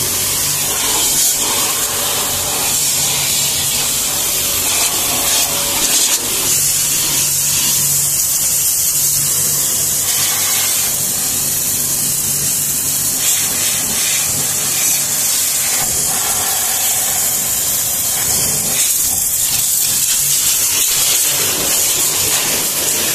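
StarQ W3 electric pressure washer spraying a steady high-pressure jet of water onto a car's body, a continuous loud hiss with a low steady hum beneath.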